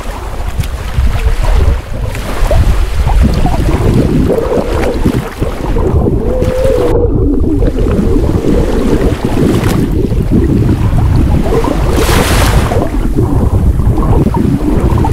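Shallow seawater sloshing and rumbling around a camera held underwater, heard muffled, with most of the sound low and dull. A short hiss comes about twelve seconds in.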